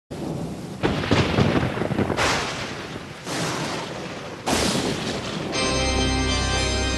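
Thunder sound effect: four loud crashes about a second apart, each sudden and dying away. About five and a half seconds in, organ music starts.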